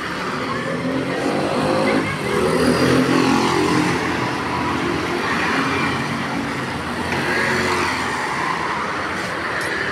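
Street traffic: motorbike and car engines passing, swelling and falling in pitch about two seconds in and again around seven seconds.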